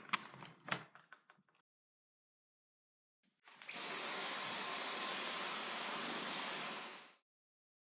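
A few clicks and knocks, then a Dyson vacuum cleaner is switched on and runs steadily for about three and a half seconds before it is switched off.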